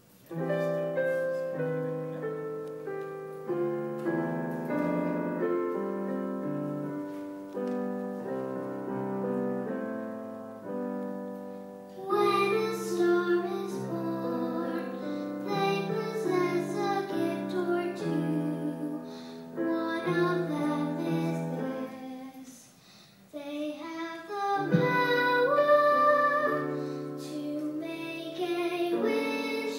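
Piano playing an introduction of sustained chords, then a singer comes in about twelve seconds in and sings a melody over the piano accompaniment, with a brief pause about two-thirds of the way through.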